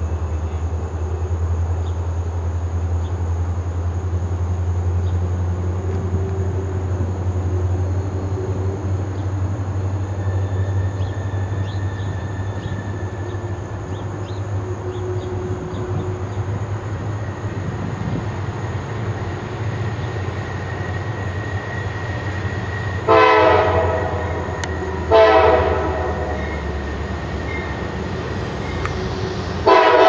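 Diesel freight locomotives rumbling steadily as they approach, then the lead GE Dash 8-40CW's air horn sounds two blasts a couple of seconds apart, the first about a second long and the second shorter, with a third starting at the very end. The horn blasts are the loudest sounds.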